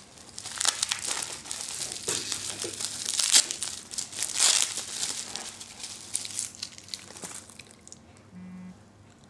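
Plastic packaging being crinkled and worked open by hand, as a small parcel is unwrapped. It makes irregular crackles that die down near the end.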